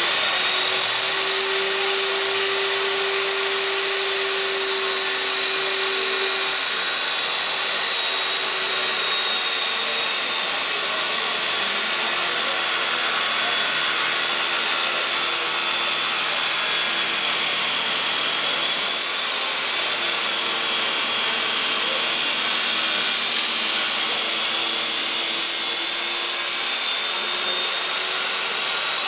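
Corded handheld circular saw running steadily as it cuts along a plywood sheet, its motor pitch wavering slightly as the blade is fed through the wood.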